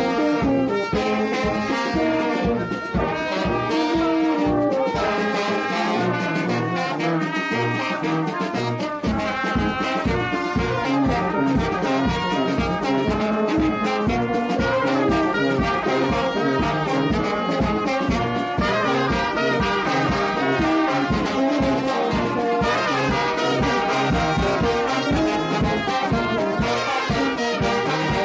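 Brass band playing, with trumpets over a steady beat; the lowest parts drop out briefly about a third of the way in, then come back.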